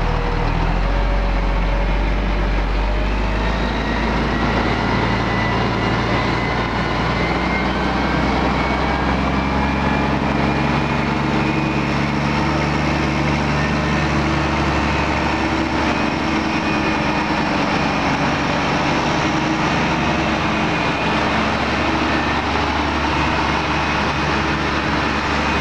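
Heavy engine of a truck-mounted tree spade running as the truck drives off. Its pitch shifts about a third of the way in, then rises briefly as it picks up speed.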